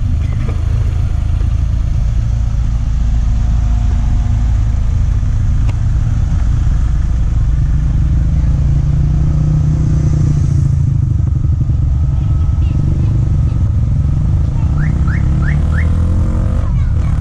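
BMW E46 cars' engines idling, a steady low rumble. Near the end an engine revs up.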